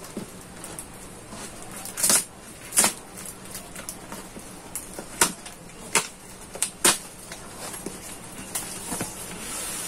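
Packing tape ripped off a cardboard shipping carton and the flaps pulled open: about half a dozen short, sharp rips and knocks with rustling of cardboard between them.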